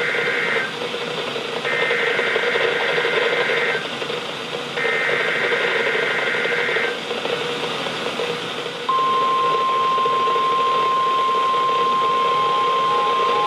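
NOAA Weather Radio SAME alert header: the tail of one burst, then two more roughly two-second bursts of digital data tones with short gaps between. About nine seconds in, the steady 1050 Hz warning alarm tone starts and holds. All of it sits over radio static hiss, and it marks the start of a new alert broadcast.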